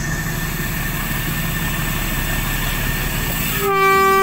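Toy model train running along its track with a steady motor hum; about three and a half seconds in, a loud, steady train horn starts and holds.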